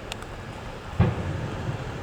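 Fireworks display: one loud firework burst booms about a second in, over a continuous low rumble of the show, with a couple of faint sharp crackles near the start.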